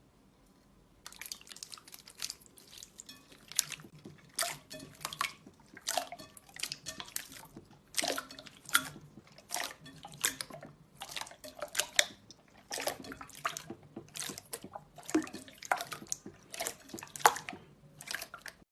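Slime being worked and squeezed, giving quick clusters of wet clicks and pops that start about a second in.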